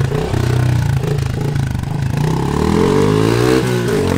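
Small dirt bike engine revving as the bike pulls away, with a makeshift tube pushed over its exhaust tip. The pitch climbs over the last couple of seconds and drops once at a gear change.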